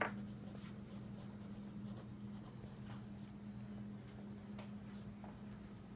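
Wooden pencil writing on a lined paper pad, faint scratchy strokes at an uneven pace, over a steady low hum. A short tap sounds right at the start.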